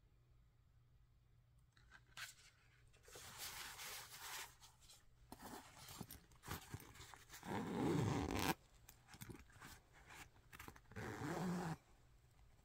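Close handling sounds of a cardboard makeup palette and a fabric cosmetic pouch: rustling and scraping in bursts, with a zipper being pulled along the pouch. The loudest burst comes about eight seconds in, and a dense zipper-like burst comes near the end.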